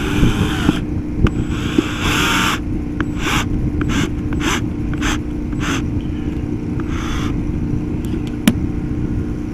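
Cordless drill driving a self-tapping screw into an RV's side wall. It gives two longer runs, then a string of short trigger bursts about half a second apart as the screw is snugged down, and a sharp click near the end. A steady low rumble runs underneath.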